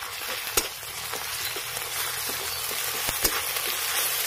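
Ginger-garlic and green-chilli paste frying with onions in hot mustard oil in an aluminium kadai, sizzling more loudly as it is stirred. A flat spatula scrapes through the mix and knocks against the pan a few times, about half a second in and again near three seconds.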